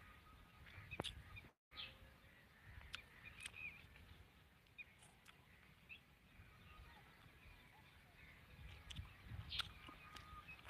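Near silence: faint outdoor ambience with scattered short bird chirps and a few faint clicks.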